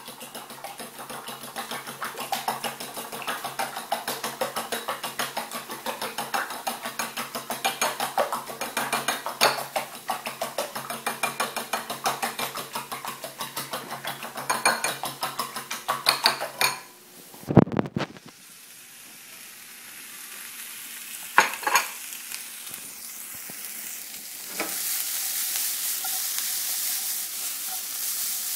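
Eggs and milk being beaten by hand in a ceramic bowl: a rapid, steady clicking of the utensil against the bowl. After a thump about 17 seconds in, diced onion and orange pepper sizzle in a non-stick frying pan, louder near the end.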